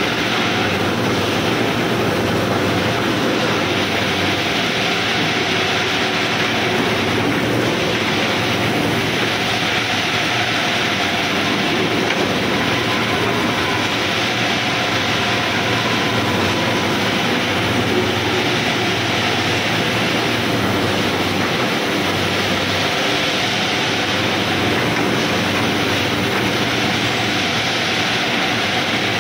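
Hot steel rolling mill running: a loud, steady mechanical din from the roll stands and their drives as red-hot bar is rolled through, with a low hum beneath.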